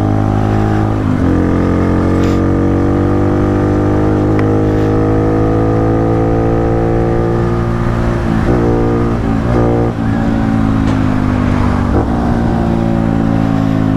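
Honda Pop 110i's single-cylinder four-stroke engine, air filter removed and an aftermarket exhaust fitted, running at high revs while riding. The revs sink sharply about a second in, climb slowly for several seconds, then dip and pick up again several times in the last few seconds.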